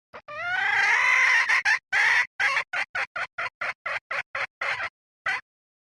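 Red junglefowl hen calling: one long drawn-out rising call, then a quickening run of about a dozen short clucks. It is a decoy-hen lure call of the kind used to draw wild junglefowl roosters.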